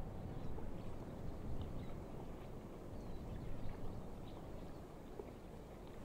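Open-air ambience: a steady low wind rumble with faint, scattered chirps of small birds.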